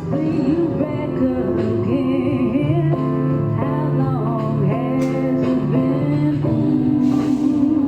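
Music with singing over guitar accompaniment.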